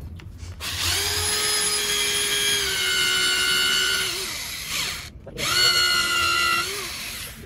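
Corded electric drill boring a test hole through the fiberglass skin into the wooden core of a boat rudder, to check the core for water damage. It makes two runs: a longer one of about four seconds whose whine dips slightly in pitch as the bit bites, then winds down, and after a brief pause a shorter run that also winds down.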